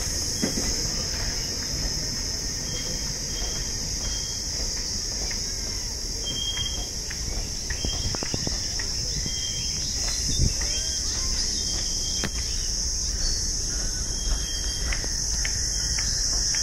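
Steady high-pitched drone of insects with short, repeated high chirps, over a low rumble that fits the passenger train rolling past.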